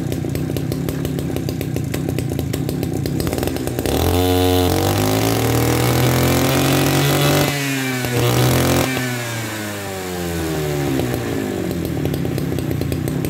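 Kioritz RMB343D brush cutter's single-cylinder two-stroke engine idling, then revved hard by hand at the carburettor about four seconds in. It holds high revs with a brief dip and a second burst, then winds back down to idle about eleven seconds in.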